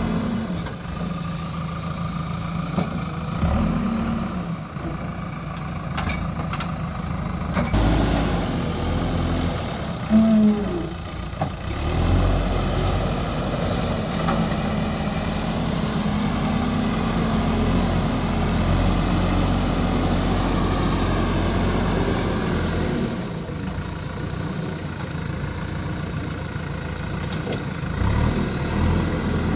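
JCB backhoe loader's diesel engine running while it works, its level and pitch rising and falling with the load, with a brief louder note about ten seconds in.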